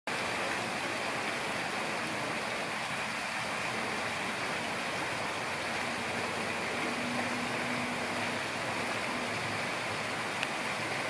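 Steady rushing background noise with no distinct events; a faint low hum comes in for about two seconds past the middle.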